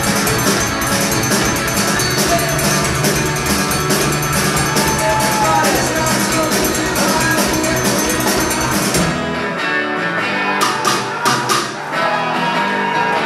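Rock band playing live: electric guitars, bass guitar, drum kit and a second percussionist. About nine seconds in, the bass and low drums drop out, leaving guitars over sharp, evenly spaced percussion strikes.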